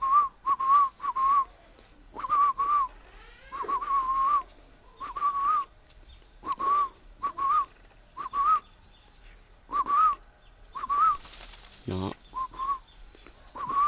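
Short whistled notes at about one pitch, each rising and falling slightly, in pairs and threes repeated about every second and a half, over a steady high-pitched tone.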